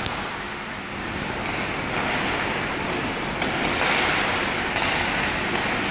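Ice hockey skates scraping and hissing on rink ice, growing louder about three and a half seconds in, over a steady low hum.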